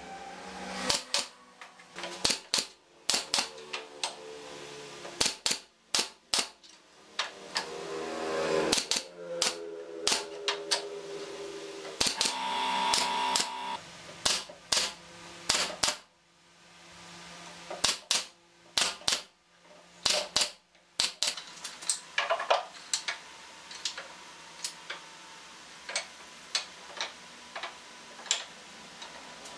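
Pneumatic brad nailer firing nails into pine pallet-wood slats: sharp single shots, often in quick runs. A power drill's motor whirs briefly a couple of times in the first half, and lighter wooden clacks of slats being set in place come in the later part.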